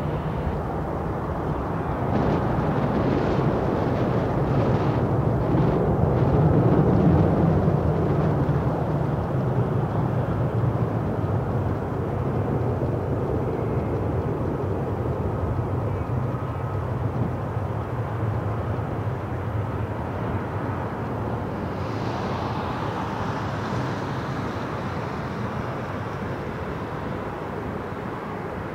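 Distant jet aircraft noise: a steady rumble that swells to its loudest about seven seconds in, then slowly fades.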